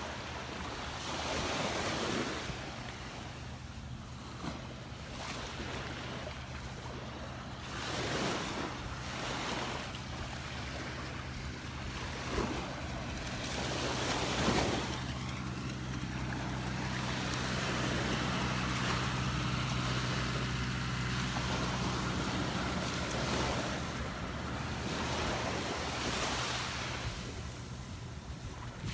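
Small waves breaking and washing up on a sandy beach, swelling every few seconds. A low steady hum runs underneath, strongest in the middle.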